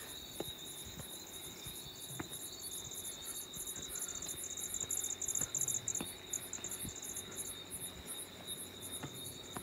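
Crickets chirping: a steady high trill with a faster pulsing chirp above it that grows louder through the middle and fades about three quarters of the way through, with a few faint knocks.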